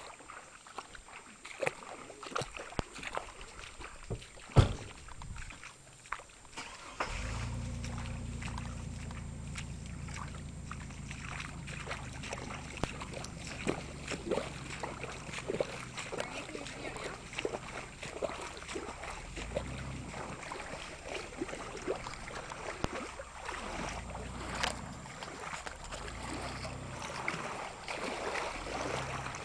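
Off-road vehicle's engine running with a steady low drone that starts about seven seconds in, with scattered clicks and knocks throughout and one loud knock shortly before the engine sound begins.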